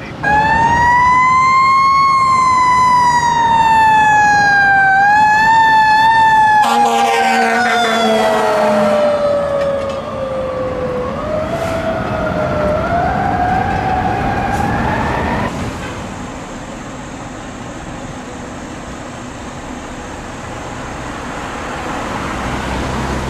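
Fire truck siren wailing, its pitch rising, then sliding slowly down with a wobble and winding back up, the slow, uneven glide of a mechanical siren. A horn sounds over it about seven seconds in, and the siren cuts off two-thirds of the way through, leaving quieter traffic and engine noise.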